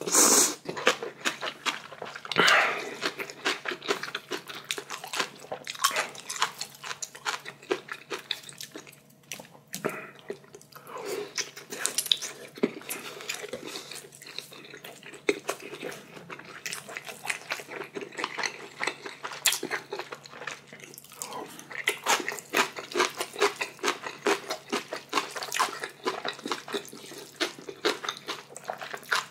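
Close-miked eating of spicy ramyeon noodles: steady wet chewing and lip smacking with short slurps, and some crunchy bites.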